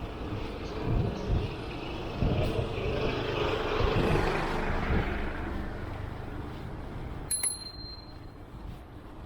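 Road and traffic noise on a ride, with a low rumble that swells to its loudest around the middle as if a vehicle passes, then eases off. About seven seconds in, a short high ring sounds once.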